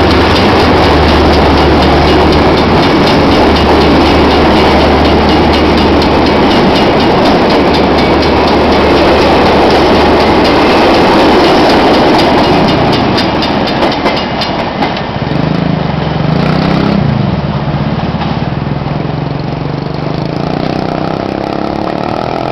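GM-Macosa J16CW diesel-electric locomotive with an EMD two-stroke V16 running under load as it pulls away and passes close, then its passenger coaches rolling by with rapid clicking of wheels over rail joints. About halfway through the engine drone drops off and the train sound grows quieter as it draws away.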